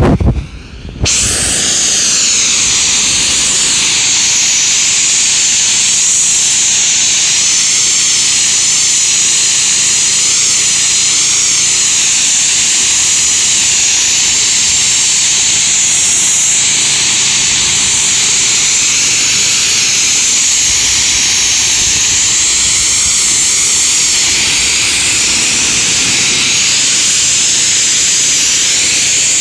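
Pressure-washer jet rinsing foam off a car's front grille and bumper: a steady, loud hiss of water spraying on the bodywork, starting about a second in.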